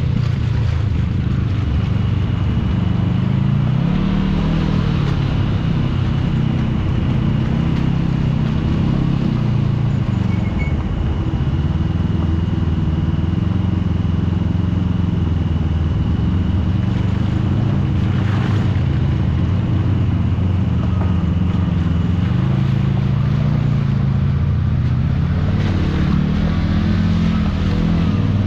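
Side-by-side UTV engine running and revving up and down as it drives a muddy, rutted trail, with a faint steady high whine through much of it.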